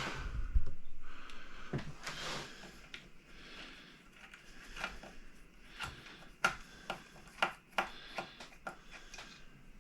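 Hand work on an electric guitar while its pickups are taken out: rustling and scraping at first, then a run of irregular small clicks and taps of small hard parts and tools, the sharpest about six and a half and seven and a half seconds in.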